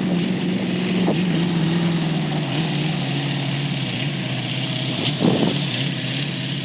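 Heavy truck diesel engine running steadily, its pitch easing lower over the first few seconds, with a brief louder surge about five seconds in.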